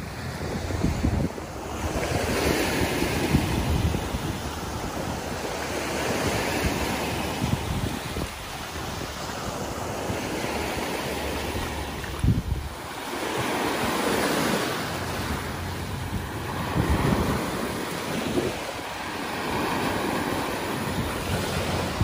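Small surf waves breaking and washing up the beach, the rush swelling and fading every few seconds, with wind buffeting the microphone.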